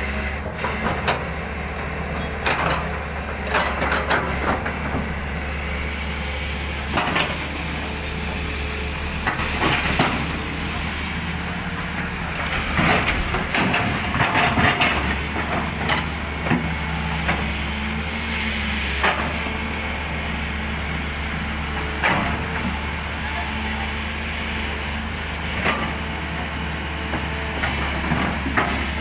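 SANY SY220C-9 excavator's diesel engine running steadily, with scattered sharp knocks and clanks, several in quick succession about halfway through.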